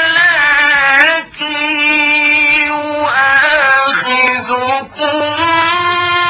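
A man chanting Quran recitation in the melodic mujawwad style, holding long ornamented notes on stretched vowels. There are short breaks for breath about a second in and near five seconds.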